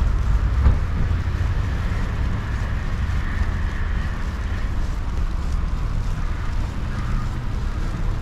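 Steady low rumble of street traffic and wind on the microphone, with a faint higher hum through the middle and a single thump just under a second in.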